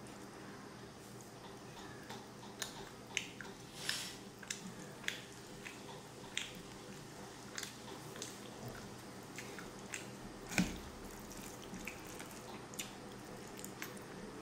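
Eating by hand: wet clicks and squelches of fingers mixing white rice with fish curry on a plate, and of chewing. They come irregularly, with one louder click about ten seconds in.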